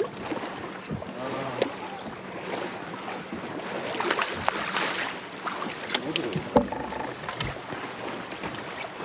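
Knocks and clicks of gear being handled aboard a bass fishing boat, over wind and water noise and a faint steady hum. The loudest knock comes about six and a half seconds in.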